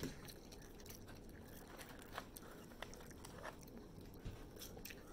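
Faint chewing of french fries, with a few soft, scattered mouth clicks against a quiet room.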